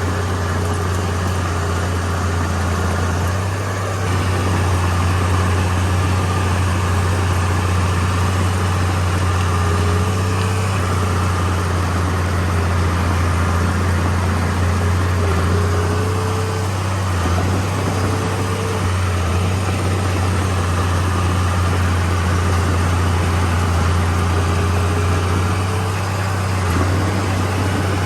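Komatsu D31P bulldozer's diesel engine running steadily with a deep drone, with a faint short whine now and then.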